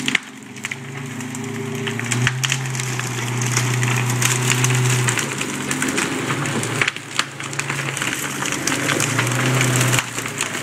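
A V8 Unimog's engine running as the truck pushes through a row of evergreen hedge trees, with branches and trunks cracking and snapping throughout. The engine note swells at times.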